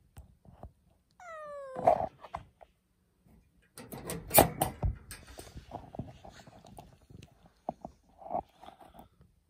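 A tabby cat gives one meow that falls in pitch, about a second long. A few seconds later comes a loud cluster of sharp clicks and knocks, followed by lighter scattered sounds.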